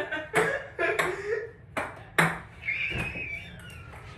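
Ping pong balls bouncing with sharp light clicks, about five in the first two and a half seconds, then quieter.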